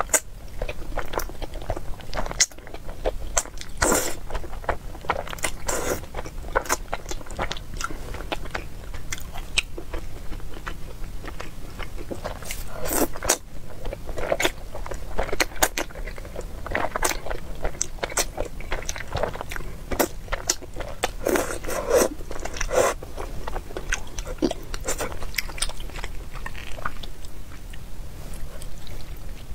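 Close-miked eating of thick spicy beef noodles: a woman slurping the noodles into her mouth and chewing them, with many short wet mouth clicks and brief louder slurps.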